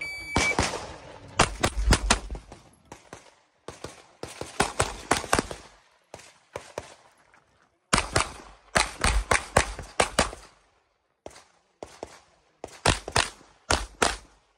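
A shot timer's short beep, then a handgun fired in fast strings of shots, with gaps of a second or two between strings while the shooter moves. The last shots come near the end.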